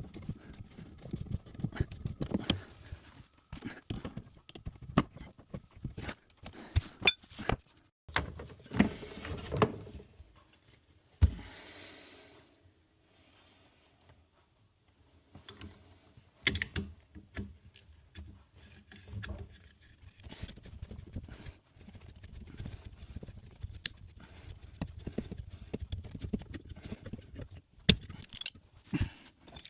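Irregular metallic clicks, knocks and scrapes of tools and pipe fittings being handled while an isolation valve is fitted on a washing machine supply, with a quieter pause in the middle.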